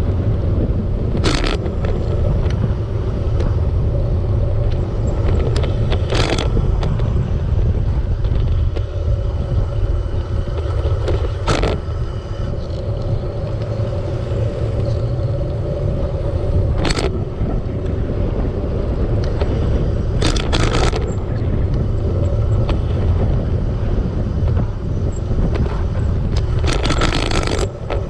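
Steady low rumble of wind and road noise during a bicycle ride, broken by about six sharp clicks or knocks spread through it.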